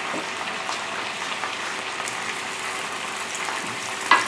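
Steady sizzling of food frying in hot oil in pans on an electric stove, with a short sharp knock near the end as a spoonful of butter is set down on the hot griddle pan.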